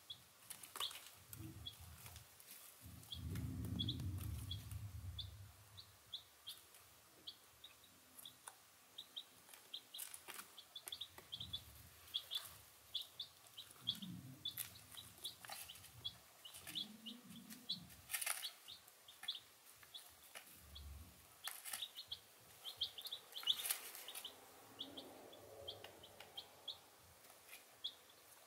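A brooder of baby chicks peeping: many short, high peeps, several a second, with scattered faint clicks. A brief low rumble comes a few seconds in.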